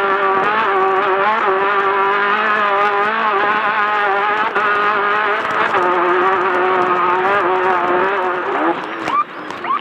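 Class 10 off-road race car's engine running hard at high revs, its pitch wavering as the throttle works over rough ground, with scattered knocks and rattles. Near the end it drops off throttle and goes quieter, then revs back up.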